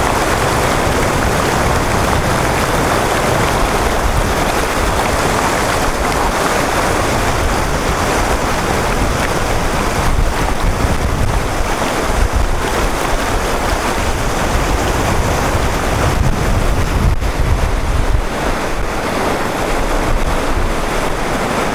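Whitewater river rapids rushing steadily at high water, a fast current too strong to wade, with wind buffeting the microphone.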